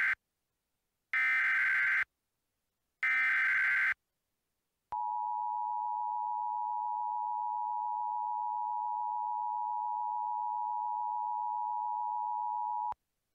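Emergency Alert System header: buzzy digital data bursts about a second long, heard twice in full after the tail of a first. About a second later the steady two-tone EAS attention signal sounds for about eight seconds and cuts off sharply, announcing a new tornado warning.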